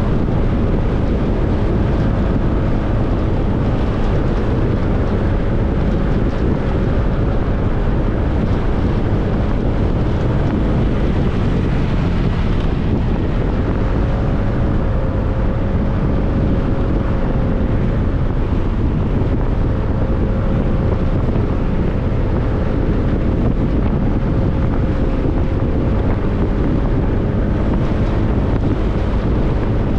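A motorcycle riding along, with wind rushing steadily over the microphone and the engine's hum underneath, rising and falling slightly in pitch.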